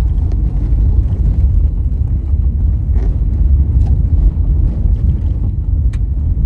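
Car driving on a gravel road, heard from inside the cabin: a steady low rumble of engine and tyres, with a few faint ticks.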